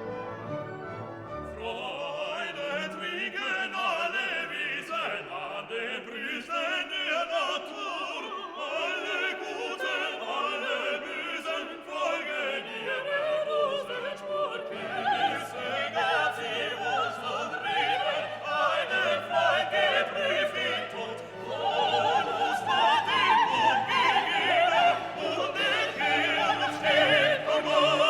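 Background music: classical operatic singing with orchestra.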